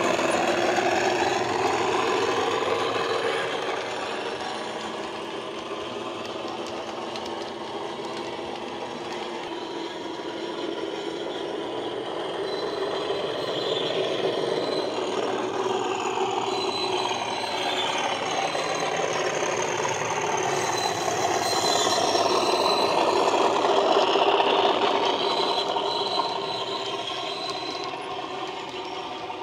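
Model Class 37 diesel locomotive's sound decoder playing the English Electric V12 engine with its turbocharger whine through an ESU EM1 speaker, the engine note rising and falling in pitch several times, along with the rattle of the model's wheels and wagons on the track.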